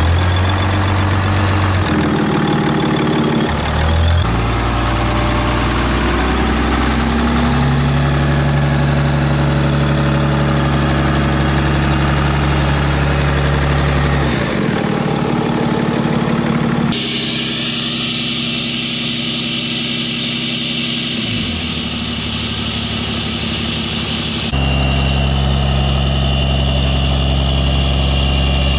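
Ram heavy-duty diesel pickup's Cummins engine idling steadily, with the exhaust brake in its warm-up mode, which works the engine at idle to bring it up to temperature. The engine note shifts a couple of times. For several seconds past the middle a loud hiss sits over a fainter engine sound.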